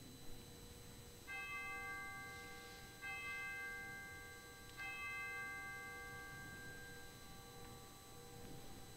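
Altar bell struck three times, a little under two seconds apart, each stroke ringing on and slowly fading. These are the consecration bells rung as the chalice is elevated.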